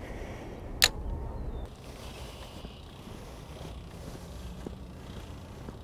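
Low steady rumble of a bicycle rolling along a paved path, with wind on the microphone, and one sharp click about a second in.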